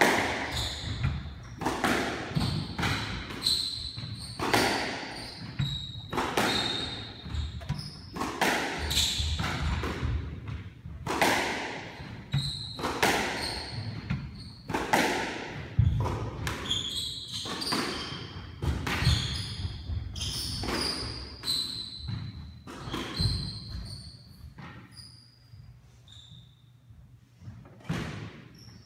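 Squash rally: the ball smacking off racquets and the court walls about once a second, echoing in the court, with sneakers squeaking on the hardwood floor between shots. The hitting stops a few seconds before the end as the rally finishes.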